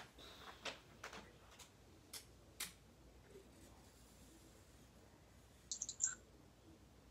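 Faint, scattered taps and clicks of Sharpie markers being worked on bags at a table, with a short run of sharper clicks about six seconds in.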